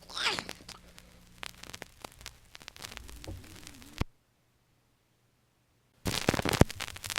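Vinyl record surface noise: a stylus crackling and clicking in the groove of a 45 rpm single after the song ends, with a sharp pop about four seconds in. Dead silence follows for about two seconds, then louder crackle and pops start up again.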